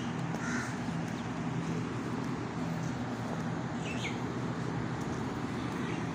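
Crows cawing twice, about half a second and about four seconds in, over a steady low hum.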